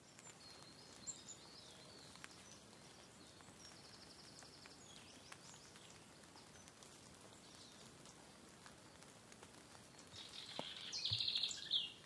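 Faint woodland ambience with birds singing over a soft steady hiss: a rapid high trill about five seconds in and a louder burst of song near the end.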